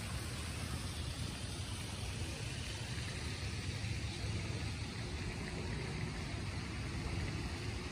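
Steady rain falling on wet ground and water, an even hiss over a low rumble.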